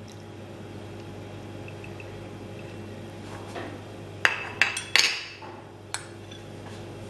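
Sauces poured from a ceramic condiment dish onto chicken strips, then a few sharp clinks of the ceramic dish against the plate about four seconds in, the third one loudest with a brief ring.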